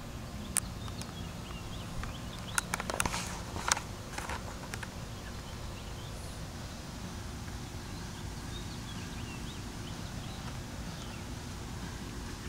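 Quiet outdoor background with a steady low rumble. A short run of sharp clicks and rustles comes about two to five seconds in, and there are faint, scattered chirps.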